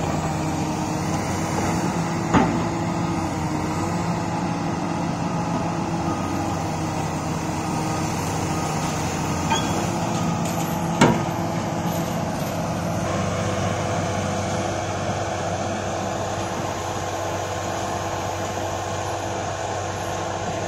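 Komatsu PC400 crawler excavator's diesel engine running steadily as the machine crawls up onto a lowboy trailer. Two sharp knocks come through, one about two seconds in and one about eleven seconds in.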